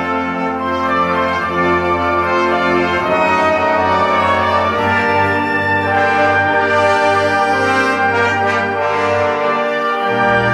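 Orchestral background music led by brass, playing long held chords that change every few seconds.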